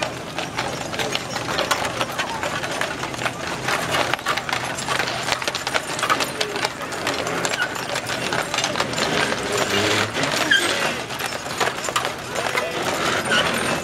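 Team of four heavy draught horses walking on an asphalt road, their hooves clopping in many quick, overlapping strikes.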